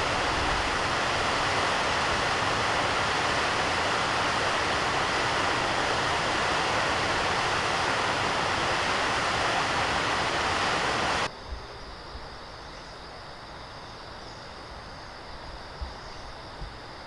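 Steady rush of flowing river water, cut off suddenly about eleven seconds in, leaving a much quieter background with a few faint knocks.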